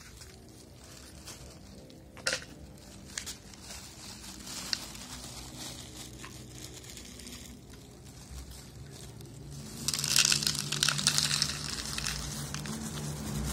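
Black plastic bag crinkling around a container of dry cat food as it is handled, loudest for a couple of seconds near the end, with a few sharp clicks earlier on.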